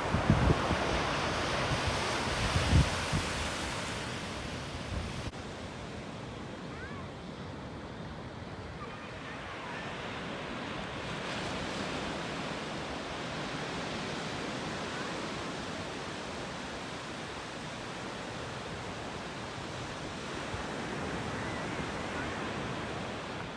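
Steady outdoor rushing noise of wind or surf, with low buffeting thumps of wind on the microphone in the first three seconds.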